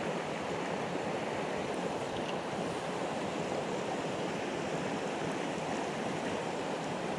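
Steady rush of a fast mountain river's water flowing over rocks, an even, unbroken noise.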